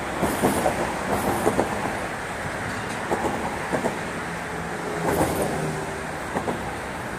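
Steady rumble of passing road traffic, with a few short clicks in the first two seconds and a low engine hum from a passing vehicle between about four and six seconds in.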